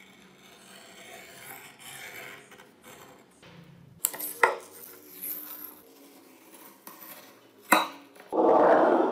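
A utility knife scrapes and trims a paper covering on a steel knife blade, with a few sharp clicks and taps on the metal. Near the end comes a louder tearing rustle as the covering is peeled off the blade.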